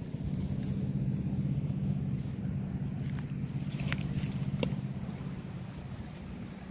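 Low, steady engine hum, likely a motor vehicle, with a few faint clicks over it.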